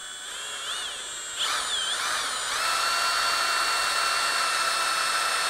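Cordless drill boring out a rivet in a chainsaw bar's nose sprocket, run slowly. Its whine wavers in pitch for the first two seconds, then settles into a steady, louder whine as the bit cuts.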